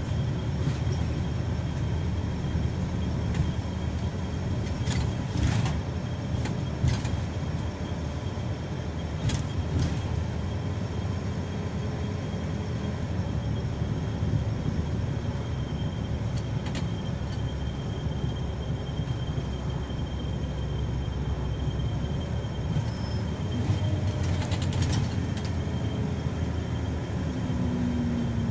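Scania K340EB coach heard from inside the cabin while moving: a steady low engine and road rumble, with a few short rattles at intervals.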